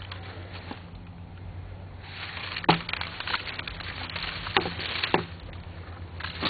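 Rustling movement with footsteps starting about two seconds in, broken by three sharp clicks or knocks, the first the loudest.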